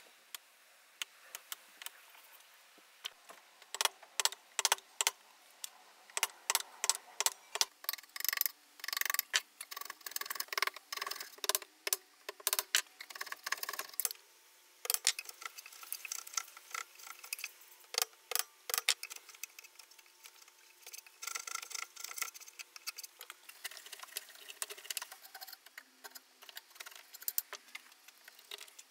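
Hand chisel cutting and paring a shallow mortise in pine: a long run of irregular sharp clicks and short scraping cuts.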